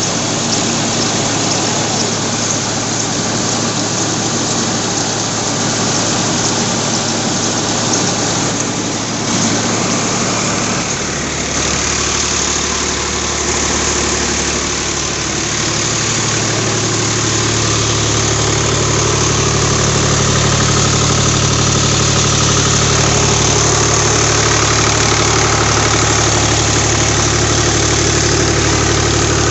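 Swaraj 735 FE tractor's three-cylinder diesel engine running under load, driving a rice huller through the PTO, over the huller's steady rushing noise. The engine note shifts about 11 seconds in and again near 17 seconds, and gets a little louder after that.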